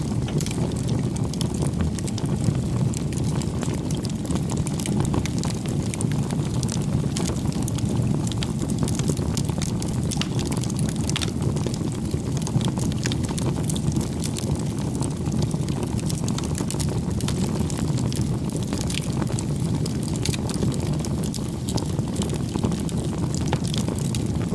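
Crackling campfire: a steady low rush of burning wood with many small, sharp pops and snaps scattered throughout.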